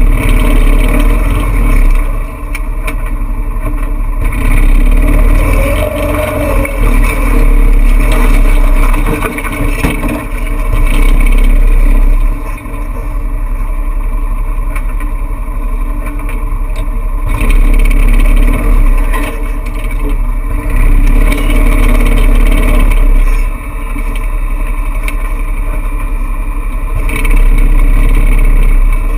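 Off-road vehicle's engine running while driving slowly, with a loud low rumble that surges and drops every few seconds.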